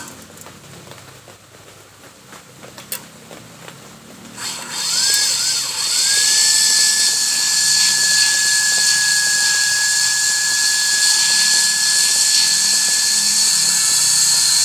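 Cotton candy machine's motor and belt-driven spinner shaft starting up about four and a half seconds in, after a few faint clicks. A short rising whine settles into a steady high whine with a hiss, the shaft turning smoother now its heat-resistant bearings are oiled.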